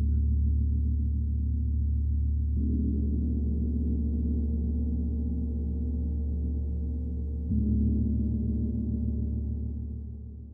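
A low-pitched gong ringing with long sustain. It is struck again about seven and a half seconds in, and the ringing fades away near the end.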